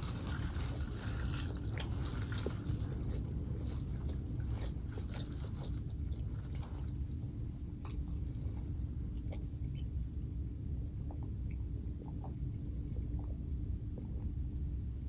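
A person chewing and biting food close to the microphone, with small mouth clicks and crunches that are frequent at first and sparser in the second half, over a steady low background hum.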